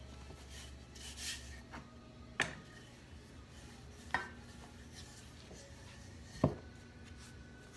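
A wooden rolling pin rolling out yeast donut dough on a wooden cutting board: faint rubbing and scraping, with three sharp knocks a couple of seconds apart, the last the loudest.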